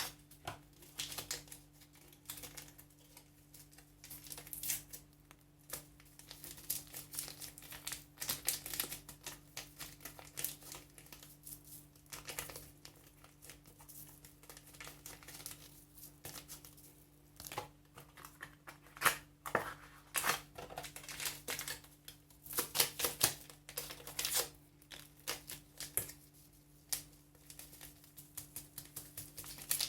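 Whisk or spoon clicking and scraping against a bowl in quick, irregular clusters while milk is mixed with sugar and vanilla. A faint steady hum runs underneath.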